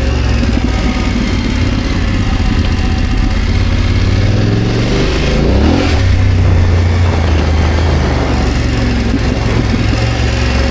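BMW F900GS's parallel-twin engine running under way off road, its revs rising briefly about halfway through and then settling back.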